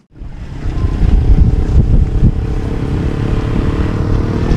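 Loud, uneven low rumble of wind buffeting the microphone, with a steady engine hum beneath it.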